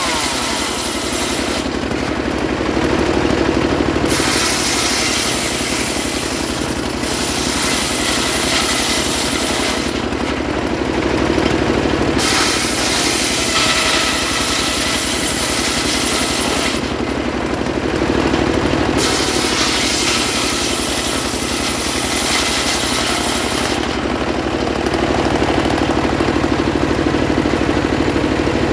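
Homemade engine-driven table circular saw ripping trembesi (rain tree) planks. The engine runs steadily throughout while the blade's cutting hiss comes and goes over several passes with short pauses between them. Near the end the blade spins free with no wood in it.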